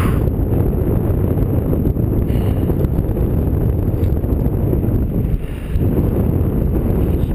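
Strong wind buffeting the microphone: a steady low noise with a brief lull about five and a half seconds in.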